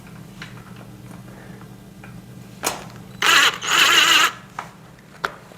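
A hand screwdriver starting a small screw into the steel frame of a storage shelf: a click, then about a second of loud metallic scraping as the screw turns, over a low steady hum.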